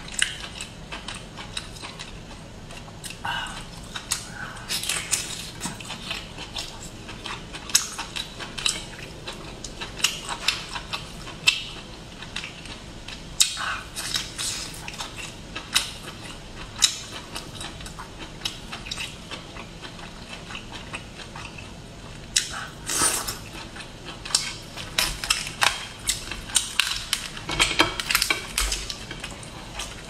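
Cooked lobster shell being cracked and picked apart by hand on a plate: irregular sharp clicks and crackles, coming thicker near the end.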